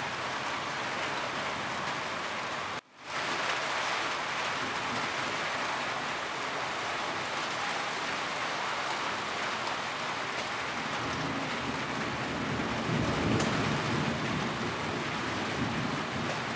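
Steady, heavy rain pattering on a roof. The sound cuts out for a split second about three seconds in. A low rumble of thunder swells in the second half.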